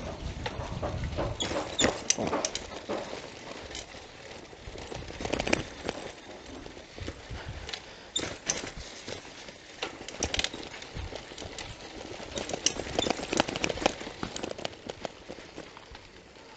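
Bicycle rattling and clattering over a rutted dirt road, with irregular knocks and rattles coming in clusters.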